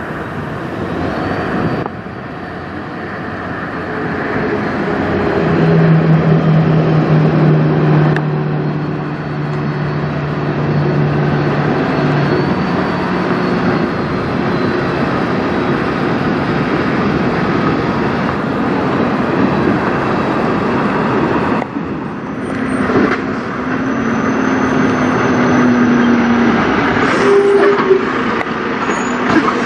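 Diesel semi-truck engines running as the tractors pull through a lot, with tyre and road noise. A Freightliner Cascadia hauling a reefer trailer is loudest as it passes close, about six seconds in. After a cut about 22 seconds in, a Volvo VNL tractor rolls by.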